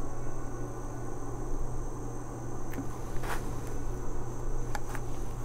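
Steady background hum with a constant high-pitched whine above it, and a few faint short clicks about three and five seconds in.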